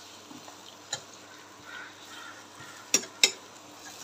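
Sliced onions frying in oil with a faint sizzle, and a stirring spoon knocking sharply against the pan three times: once about a second in, then twice close together near the end.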